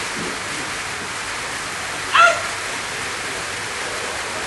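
Steady rain hiss, with a dog giving one short, high-pitched bark about two seconds in.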